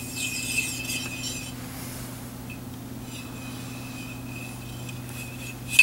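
Cleaning rod with a jag pushing a small patch through a Ruger 10/22's .22 barrel: a scraping rasp with a faint squeal, in two strokes, the second ending in a sharp click. A steady low hum lies underneath.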